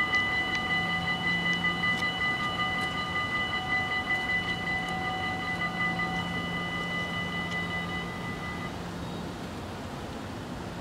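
Dutch level-crossing warning bells ringing rapidly and steadily while the barriers lower, then stopping about eight seconds in as the booms close, leaving a low steady hum underneath.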